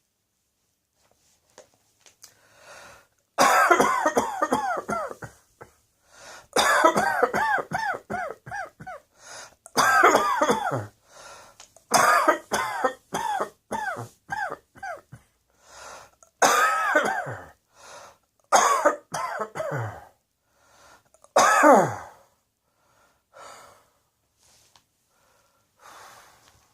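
A person coughing in repeated fits, each a quick run of several coughs, with short pauses between fits; the coughing begins a few seconds in and stops a few seconds before the end.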